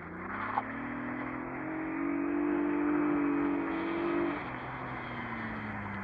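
Ford Sierra Mk2's engine revving up as the car accelerates, held at high revs for about two seconds, then the revs falling off as the throttle is lifted, a little over four seconds in. A brief click about half a second in.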